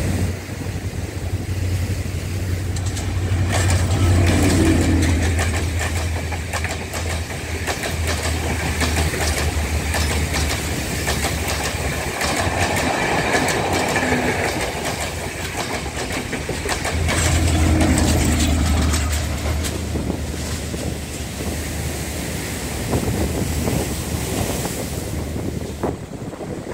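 Sri Lanka Railways Class S13 diesel multiple unit running past close by: a steady diesel engine drone and wheels clattering over the rail joints. It swells twice, about four seconds and about eighteen seconds in.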